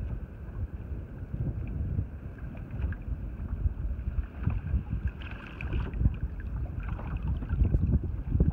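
Wind buffeting the microphone aboard a small boat at sea, a gusty low rumble, with a few faint short splashes or knocks in the middle and near the end.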